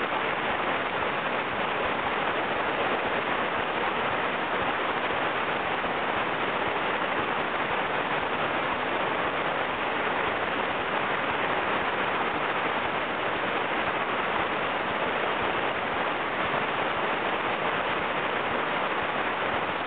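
Steady rush of churning whitewater from a river rapid's standing wave, a constant noise without breaks.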